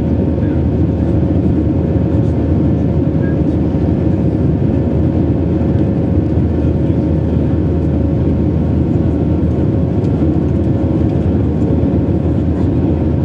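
Steady cabin noise inside an Airbus A321 climbing after takeoff, heard from a window seat beside the wing: the jet engines running and air rushing past the fuselage as an even drone, with a faint steady hum running through it.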